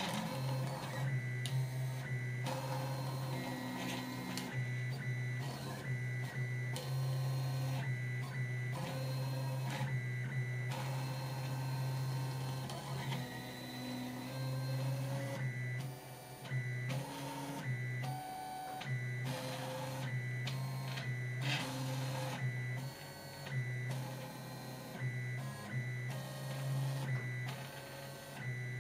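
Stepper motors of a HyperCube 3D printer running as a pen plotter, whirring and whining as the pen carriage traces lines. The motion comes in stop-start runs, the pitch changing from one move to the next.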